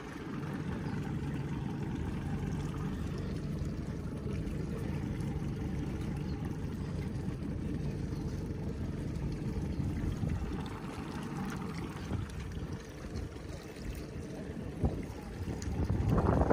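Boat motor running steadily at low speed, a constant low hum.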